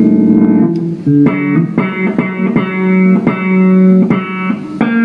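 Replica Gibson Les Paul Custom electric guitar played through a Marshall amplifier: about a dozen notes picked one after another on open and fretted strings, each ringing on, with fret buzz even on the open strings. The luthier puts the buzz down to nut slots cut too deep, which let the strings touch the first fret.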